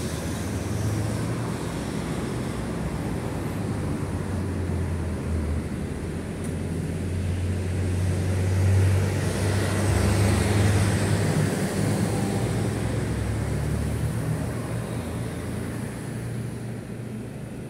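Low rumble of a passing aircraft, swelling to its loudest about halfway through and fading away near the end.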